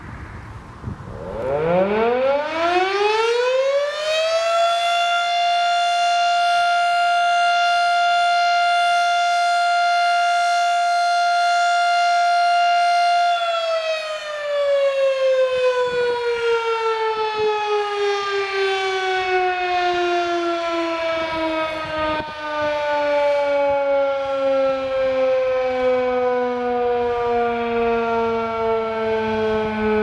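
Federal Signal Model 5 outdoor warning siren sounding for a routine test: it starts up about a second in, its wail rising in pitch to a steady high tone by about four seconds. It holds there until nearly halfway through, then slowly falls in pitch as it winds down, still sounding at the end.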